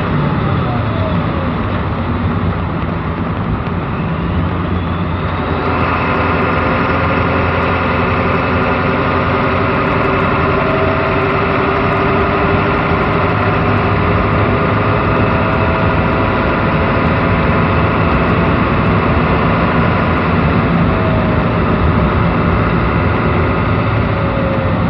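1994 Ford 7.3 Powerstroke turbodiesel V8 with split-shot injectors, heard from inside the cab while driving: the revs fall as it shifts up near the start, then it runs steadily under way in a high gear, the engine sound growing fuller about six seconds in.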